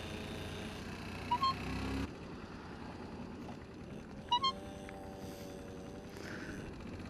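Motorcycle engine running at low speed in traffic; its note rises and holds about four and a half seconds in. Two short two-note electronic beeps sound, one a little over a second in and another about four seconds in.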